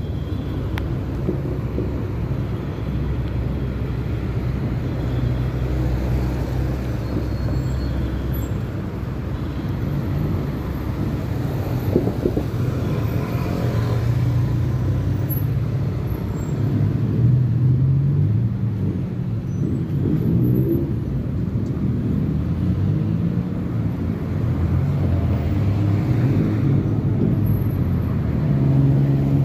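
Busy city road traffic: cars passing on a multi-lane street, a steady hum of engines that rises and falls as vehicles go by.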